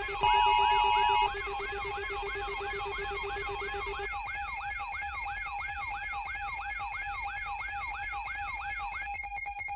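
Electronic siren sweeping up and down quickly and repeatedly, about three sweeps a second, over steady electronic tones. A loud chord of steady alert tones sounds for about the first second, and near the end the siren stops, leaving a rapid regular ticking.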